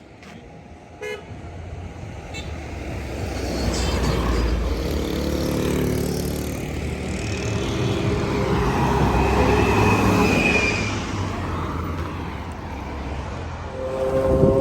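Motor vehicle engine rumbling, growing louder over a few seconds and easing off toward the end, with a horn toot partway through.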